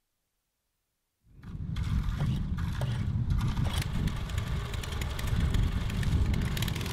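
Mini excavator's small diesel engine running steadily with mechanical clatter, coming in about a second in.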